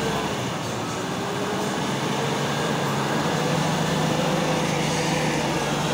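Off-road vehicle's engine running steadily on a wet dirt track, a faint, slightly wavering whine over a broad, even hiss.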